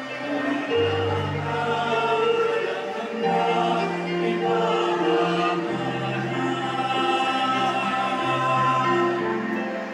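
Choir singing a slow hymn over sustained low accompaniment notes that change every second or two, typical of a communion hymn during Mass.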